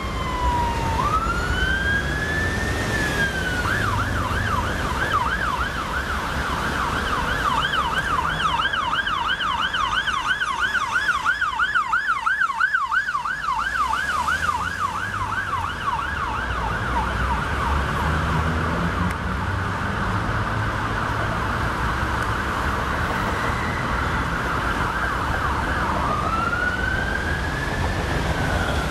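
Ambulance siren passing on a city street: a slow rising and falling wail, then a rapid yelp for most of the time, going back to a slow wail near the end, over the low rumble of traffic.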